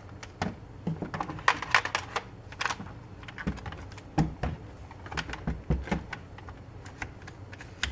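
An airsoft EGLM grenade launcher being fitted back onto a SCAR rifle's rail: a run of irregular sharp clicks and clacks of hard parts knocking and latching together.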